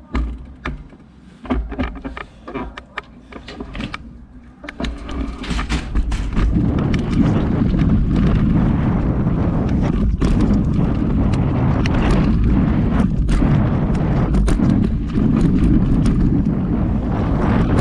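Mountain bike (Calibre Bossnut V2) heard from a handlebar-mounted action camera: scattered clicks and knocks as it rolls off the start ramp. About five seconds in, a loud, steady deep noise of wind on the microphone and tyres on the dirt track sets in as the bike picks up speed.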